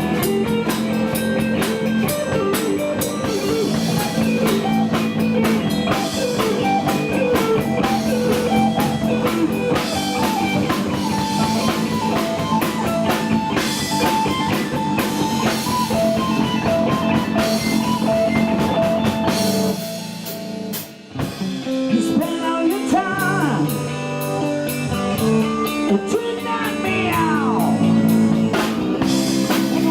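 A live blues-rock band plays, with electric guitar and drum kit. About twenty seconds in the band drops back for a moment, then the guitar carries on with bending lead lines.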